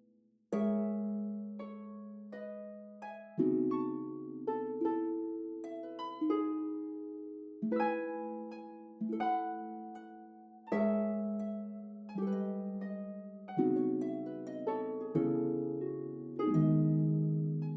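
Plucked-string music: single notes and chords, each struck and left to ring and fade, with a new attack every second or so. It begins about half a second in, after near silence.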